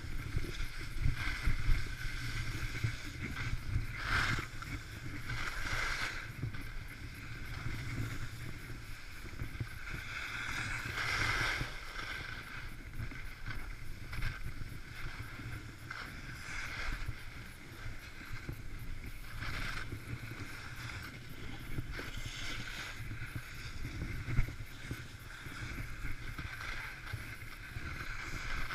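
Skis sliding and scraping over groomed snow on a downhill run, with a steady low wind rumble on the camera's microphone. The scraping hiss swells several times for a second or so, as on the turns.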